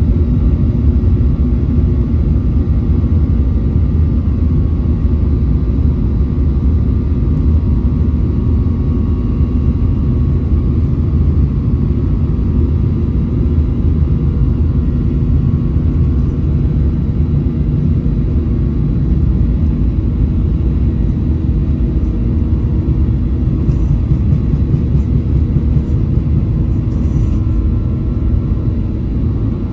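Steady low rumble heard inside a jet airliner's cabin as it taxis, from the engines at low power and the plane rolling on the pavement, with a faint steady whine above it.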